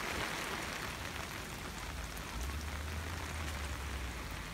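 Steady rain falling on a pop-up camper and waterlogged grass, with a low rumble from about halfway through to near the end.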